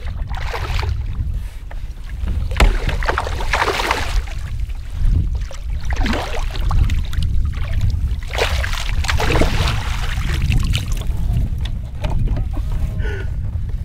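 Wind rumbling steadily on the microphone of a kayak on open water, with surges of water washing and splashing against the hull every few seconds.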